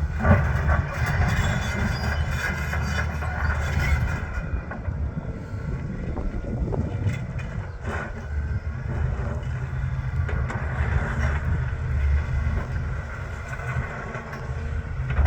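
Heavy machinery engine running with a steady low rumble, with a few short metallic knocks, the loudest just after the start.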